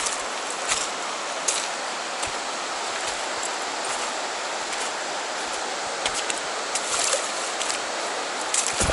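Flowing river water rushing steadily, with a few brief clicks.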